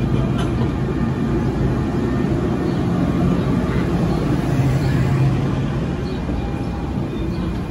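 NJ Transit Arrow III electric multiple unit moving slowly past the platform as it departs: a steady low hum from its traction motors over the rumble of its wheels on the rails.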